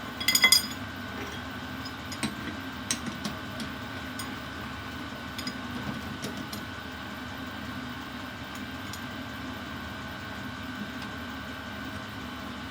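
Metal being handled: a quick run of ringing metallic clinks about half a second in, then scattered light clicks and taps, over a steady hum.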